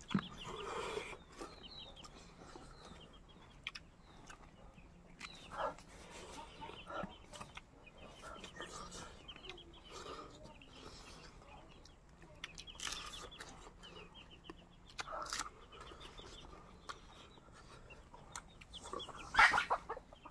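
Domestic fowl clucking, mixed with scattered short clicks.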